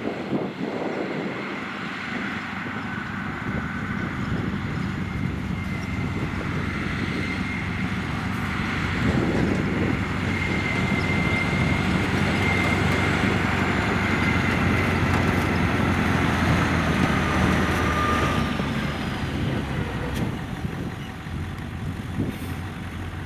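Heavy diesel farm machinery running with a steady whine, growing louder about a third of the way in and easing off near the end.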